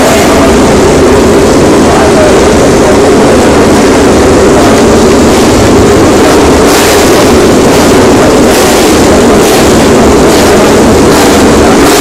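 A grid full of 2013 MotoGP bikes' 1000 cc four-stroke racing engines running and revving together while waiting for the start. It makes a dense, very loud roar with quick bursts from about halfway through.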